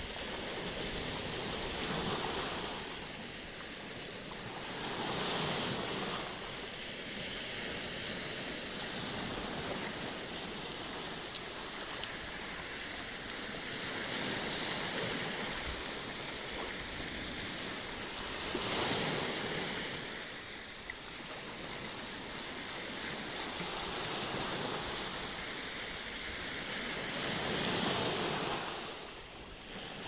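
Black Sea surf breaking and washing over a pebble-and-boulder beach: a continuous wash of water that swells louder several times as bigger waves come in.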